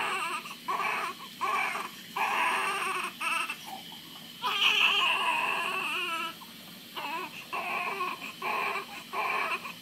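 Newborn baby crying: short wails one after another with brief gaps for breath, and one longer, louder cry about halfway through.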